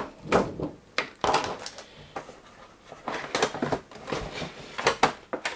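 Clear plastic film crinkling as it is peeled off a board-game box insert, with sharp clicks and knocks from the rigid plastic insert trays being handled, several times and irregularly.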